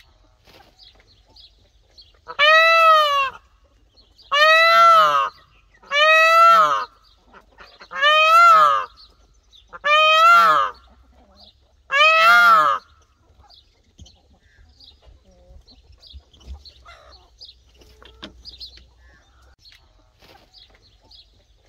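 Male Indian peafowl (peacock) giving six loud calls in a row, about two seconds apart, each under a second long and rising then falling in pitch. The calls stop about halfway through, leaving only faint short chirps.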